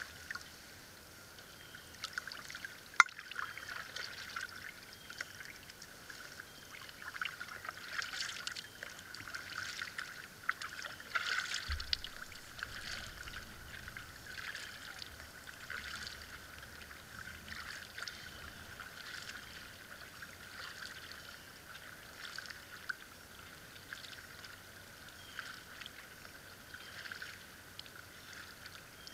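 Canoe paddle strokes in calm lake water: soft splashes and drips every second or two, growing fainter as the canoe moves away. A single sharp click about three seconds in.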